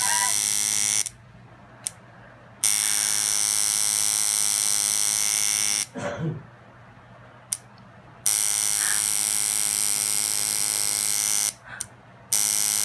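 Tattoo machine buzzing loudly and steadily in runs of a few seconds, switched off and back on three times as the needle is worked into the skin.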